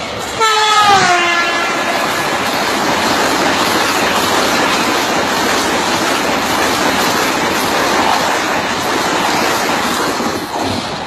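A train passing close by: its horn sounds briefly at the start with the pitch dropping, then the loud, steady rush and rattle of the wheels and carriages going past, easing slightly near the end.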